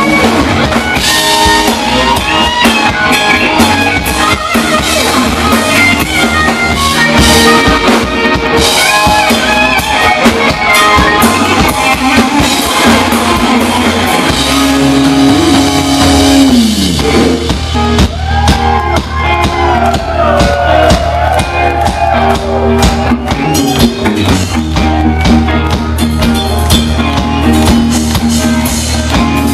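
Live hard rock band playing loudly: distorted electric guitars, bass guitar and a drum kit.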